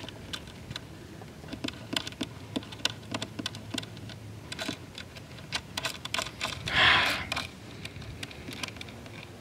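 Small, irregular clicks and ticks of needle-nose pliers and metal parts knocking against the output jack in the side of a hollow-body electric guitar as the jack is worked into its hole. There is a brief louder hiss about seven seconds in.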